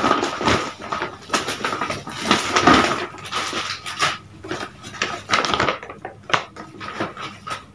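Paper shopping bag being crumpled and rustled in the hands, a dense crinkling for about six seconds that thins to a few lighter crackles near the end.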